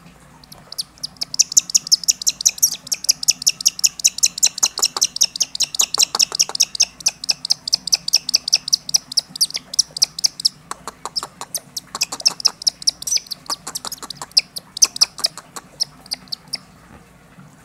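Young hawk calling in a long, rapid run of high, repeated chirps, several a second, as it mantles over meat on the falconer's glove; the calling breaks off briefly about halfway and stops shortly before the end.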